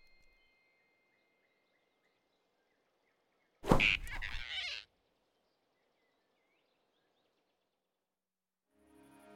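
Cartoon sound effect of the big rabbit snatching the flying squirrel: a sudden loud burst about a second long, set in near silence. Soft music starts fading in near the end.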